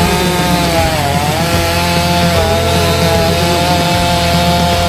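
Stihl MS 500i fuel-injected two-stroke chainsaw running at high revs while cutting wood. Its pitch sags briefly under load about a second in and again near the middle, then holds steady.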